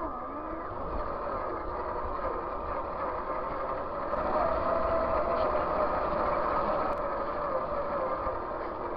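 Traxxas TRX-4 RC crawler's electric motor and geared drivetrain whining as it drives along a dirt track. The whine wavers in pitch with the throttle and grows a little louder from about four seconds in.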